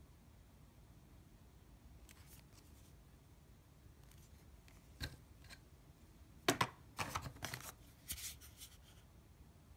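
Handling noises from unboxing: faint rustling of packaging and small clicks as a coiled USB cable and a wall charger are handled and lifted out of the box. The sounds come in a loose run of sharp clicks and rustles, loudest a little past the middle.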